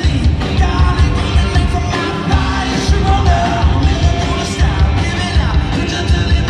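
Live rock band playing: electric guitars over a drum kit's steady beat, with a sung lead vocal.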